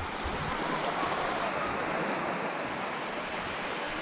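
Steady rushing water of a waterfall.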